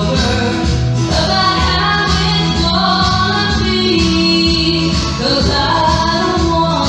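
Music: a song with a woman singing over a steady beat.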